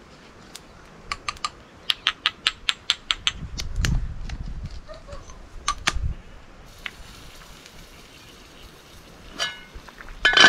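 A quick run of sharp clicks, about five a second, followed by a few scattered ones. Near the end, a metal cauldron lid clanks and rings briefly as it is lifted off the steaming pot.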